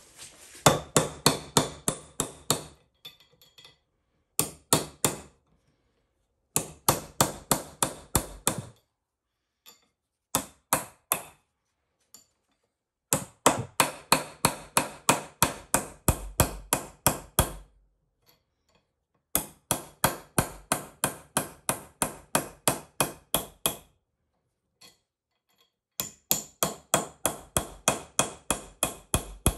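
Hammer blows on metal in quick runs of about five strikes a second, each run lasting a few seconds before a pause, with a ringing tone carrying through the strikes.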